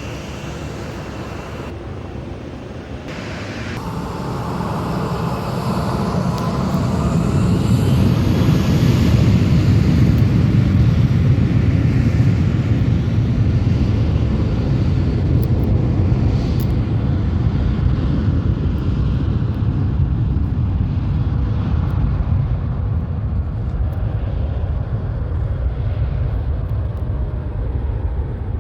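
Jet airliner's engines: a low rumble that builds over the first several seconds, with a faint rising whine, then stays loud and steady.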